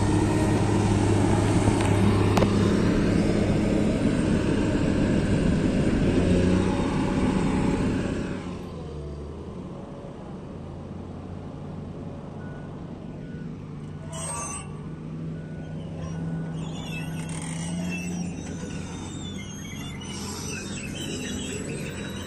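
Komatsu PC200 amphibious excavator's diesel engine running hard as the machine moves on its pontoon tracks, then dropping to a quieter, steady run about eight seconds in.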